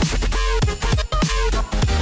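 Background electronic dance music, dubstep-style, with a steady beat and falling bass drops.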